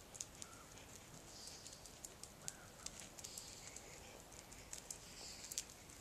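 Faint, irregular crunching steps and the light patter of dogs' paws on a gravel track littered with dry leaves.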